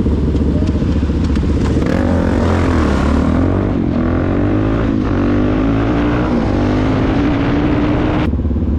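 Supermoto motorcycle engine running at road speed under steady throttle, its pitch dipping and then climbing steadily over several seconds, over a loud low wind rumble.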